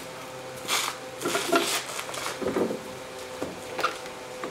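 Plastic door-sill kick pad and rubber weatherstripping being pried up and pulled off by hand in a 2003 Ford Explorer: a series of irregular clicks and rustles.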